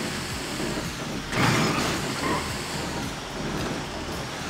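A heavy vehicle's engine running low and steady on a steep descent, with a short loud hiss about a second and a half in.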